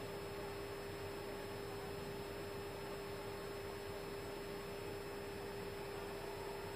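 Steady cockpit background of an Airbus A320neo parked with its engines not yet started: an even hiss of ventilation with a constant pitched electrical hum.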